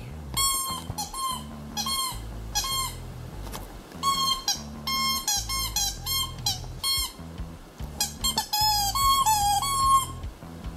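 Background music: a short, repeating melody of stepped notes over a bass line.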